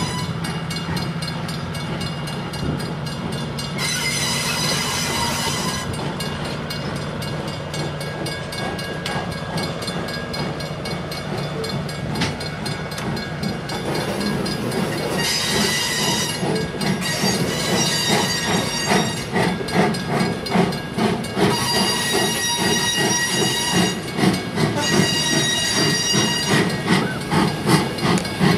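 A slow-moving passenger train rolls past, with several stretches of high wheel squeal a second or two long. Near the end the steam locomotive draws level and its exhaust chuffs come in, growing louder at about one a second.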